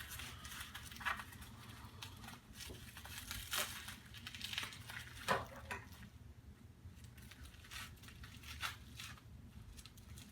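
Plastic packaging crinkling and tearing as it is cut and pulled open to free new RAM sticks, in irregular crackles and rustles that thin out past the middle.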